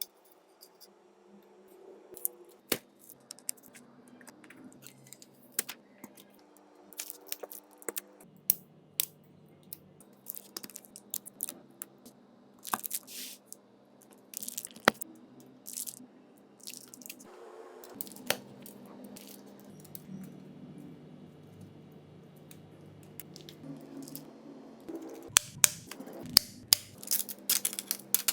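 Scattered sharp clicks and taps of small tools and phone parts being handled during a smartphone repair, coming thick and fast near the end. Faint background music with held notes runs underneath.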